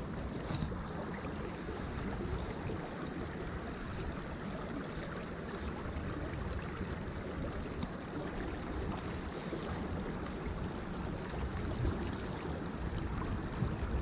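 Shallow creek water rushing steadily over stones, with a low wind rumble on the microphone.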